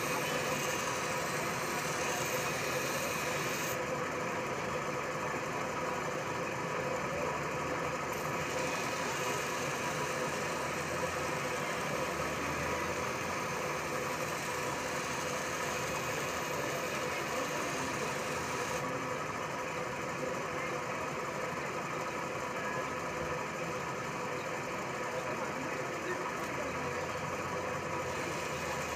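Steel scissor blade being ground on a large power-driven grinding wheel: a steady grinding rasp over the machine's running hum. The high hiss drops away twice, for a few seconds each time.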